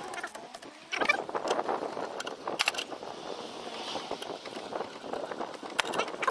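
Car's original scissor jack being cranked by hand: a dense run of metallic clicks and rattles that starts about a second in.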